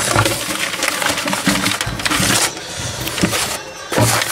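Sheets of newspaper rustling and crinkling as they are laid down and smoothed flat by hand as cage lining, with a louder crackle near the end.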